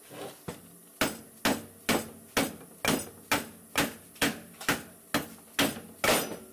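Rubber mallet hammering a brake caliper bracket to drive out a seized caliper slide pin. It strikes about a dozen steady blows, roughly two a second, each a sharp knock with a short ring.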